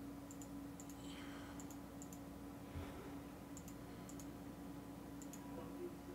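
Faint clicking of a computer mouse: short double clicks every second or so at uneven spacing, over a low steady hum.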